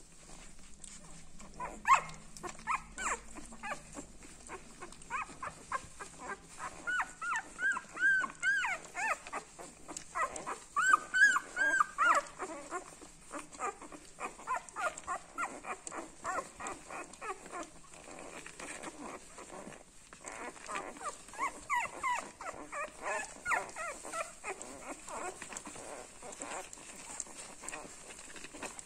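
Nursing newborn puppies squeaking and whimpering, in several runs of short, arched, high squeaks, over a steady patter of small suckling and shuffling clicks.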